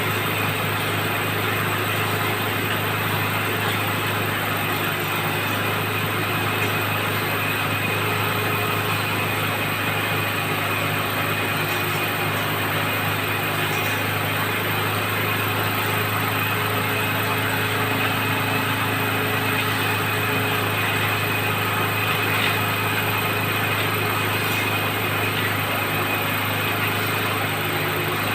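Engine of a well-drilling rig running at a steady speed, an unchanging drone.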